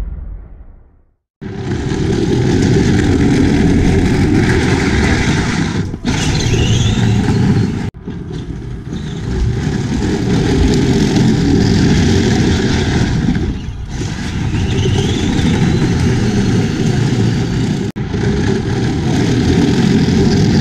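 Children's battery-powered ride-on quad driving on concrete: a loud, steady rumble of its hard plastic wheels and drive running across the driveway, broken by sudden cuts between shots. It opens with a short intro sound fading out before the rumble starts.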